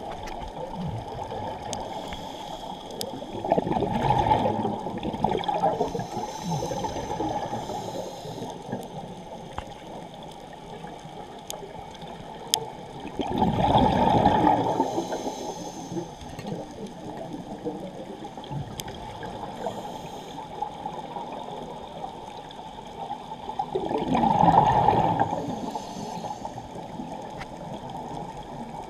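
Scuba diver's exhaled bubbles gurgling out of the regulator three times, about ten seconds apart, over a steady underwater hiss.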